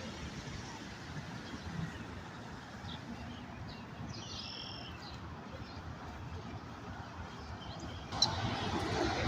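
Outdoor park ambience with a steady background hiss, and a small bird chirping a few times, most clearly a short two-part call about four seconds in. A louder noise sets in near the end.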